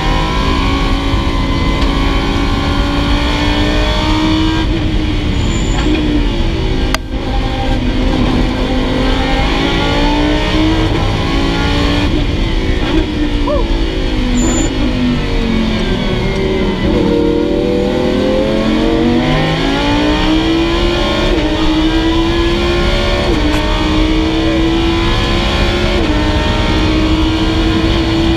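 Lamborghini Huracán's V10 at racing speed, heard from inside the cabin: the revs climb through quick upshifts, fall as the car slows about halfway through, then climb again as it accelerates.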